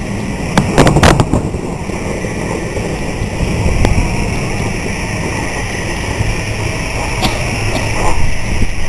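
Fireworks exploding: a quick cluster of sharp bangs about a second in, then a continuous low din with a few scattered pops.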